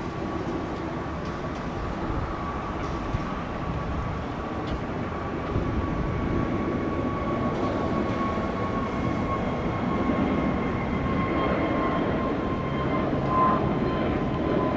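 Jet airliner engines running: a steady high whine over a noisy rumble, growing slowly louder.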